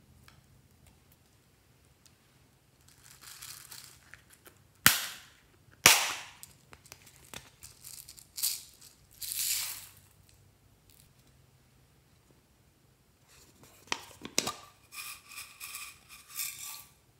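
Plastic slime containers and slime being handled: scattered clicks and rustles, with two loud sharp snaps about a second apart, and a short squeaky stretch near the end.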